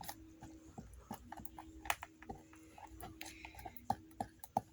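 A spoon stirring and beating a sticky mixture of white glue and detergent in a bowl, making irregular clicks and taps as the slime is worked to firm it up.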